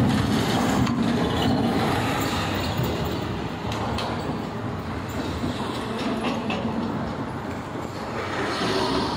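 City street traffic: a city bus rolling past over steel road plates, a heavy rumble with a few clanks, fading as it moves away.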